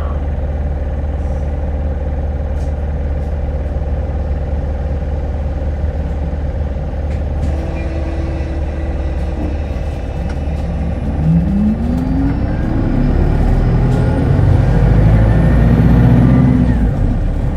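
Hino Blue Ribbon hybrid city bus heard from inside: a steady low hum, then about eleven seconds in the engine note rises as the bus accelerates, with a faint high whine climbing near the end.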